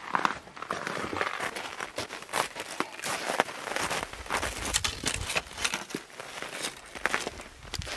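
Crunching and rustling as people move about on packed, icy snow and handle ski gear: a quick, irregular run of crackles and crunches.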